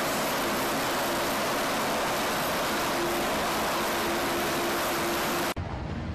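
US Navy LCAC hovercraft running at speed: its gas turbines and ducted propellers make a steady rushing noise with a faint steady hum. About five and a half seconds in, the sound cuts off suddenly to a lower, duller rumble buffeted by wind.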